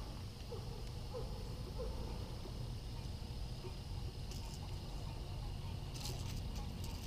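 Quiet pond ambience: a steady low rumble and a faint insect hum, with a few faint chirps in the first two seconds. Small clicks and rattles come about four and six seconds in, as fishing pliers are brought to a panfish hooked on a lure.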